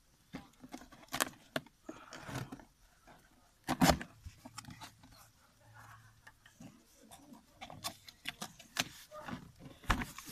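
Cardboard box being opened and handled by hand: flaps scraping and rustling, with irregular knocks on the cardboard. There is a loud knock about four seconds in and another near the end.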